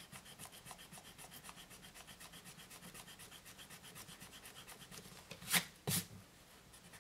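Palomino Blackwing Volumes 42 graphite pencil scribbling zigzag strokes on lined notebook paper: a faint, even scratching at about five strokes a second. Two brief louder sounds follow near the end.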